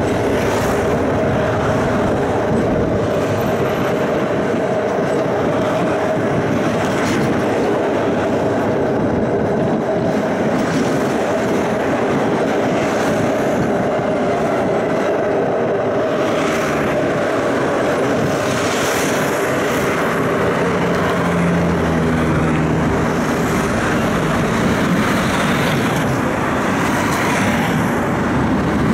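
Tram running along its tracks, heard from on board: a steady rumble of wheels on rails with a steady hum from the running gear.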